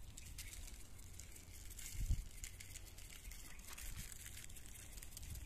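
Salt shaken from a glass shaker onto cut raw mango on a paper plate: a fine scatter of light, high crackly ticks, with one soft low thump about two seconds in.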